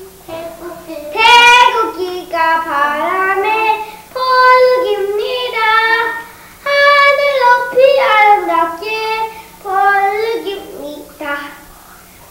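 A young child singing a song unaccompanied, in short high-pitched phrases with brief breaths between them, over a faint steady hum.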